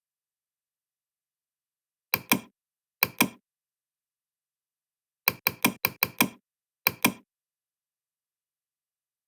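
Sharp knocks in quick succession, separated by dead silence: two pairs, then a run of six, then one more pair.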